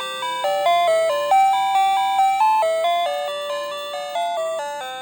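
Doorbell melody chip (YL007B) playing an electronic chime tune: a run of single bell-like notes, about three a second, each struck and fading, stepping up and down in pitch. This is how the YL007B melody circuit should sound.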